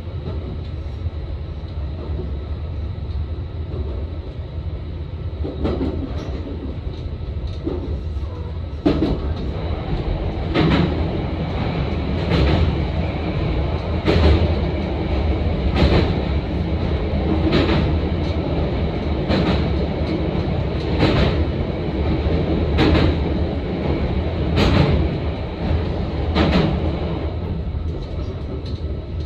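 Electric passenger train running along the track: a steady low rumble, with regular clacks from the wheels over rail joints about every second and three-quarters, starting about six seconds in.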